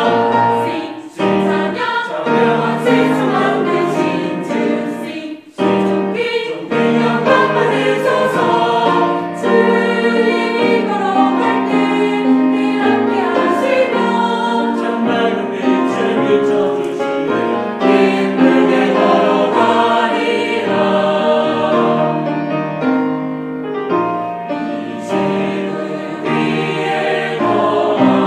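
Mixed church choir singing a Korean hymn in parts, accompanied by piano and strings. The singing breaks briefly between phrases about a second in and again at about five and a half seconds, then runs on.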